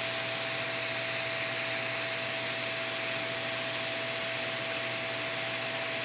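Hot-air heater blowing steadily as it shrinks heat-shrink tubing: an even fan hiss with a thin steady whine.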